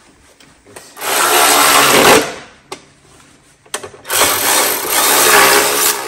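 Cordless power driver run in two bursts of a second or two each, driving fasteners back into the engine as the spark plugs and cover go back on.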